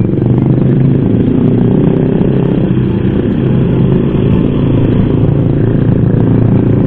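Yamaha Jupiter MX underbone motorcycle's single-cylinder four-stroke engine running steadily under way, heard from a helmet camera with road and wind noise.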